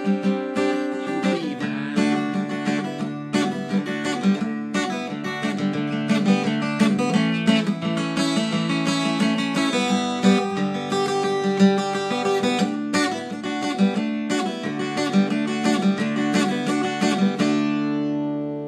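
Acoustic guitar strummed in a steady run of chords, with a last chord left to ring out and fade near the end.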